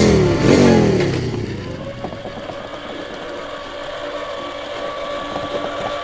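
Cartoon electric mobility scooter's motor whining steadily as it drives off, preceded by a falling sweep of tones in the first second.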